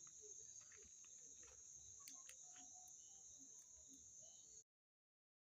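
Faint, steady chirring of crickets, with a few faint clicks, cutting off abruptly into dead silence about a second before the end.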